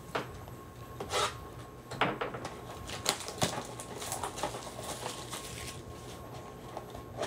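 Cardboard trading-card blaster box being handled and opened by hand: scattered rubbing, scraping and tapping of cardboard, with a few sharper clicks about one, two, three and three and a half seconds in.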